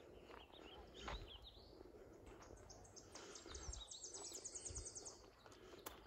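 Woodland songbirds: a few short high chirps in the first second, then a rapid, high trill of evenly spaced notes lasting about two seconds, over faint footsteps on a dirt forest trail.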